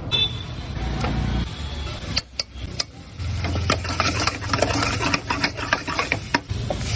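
Metal spatula stirring and scraping noodles in a pan, with quick irregular clicks and scrapes and a short lull about two seconds in.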